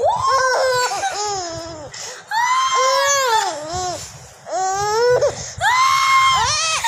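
A baby girl vocalising: four long, high-pitched, wavering sounds with short pauses between, each falling in pitch at its end.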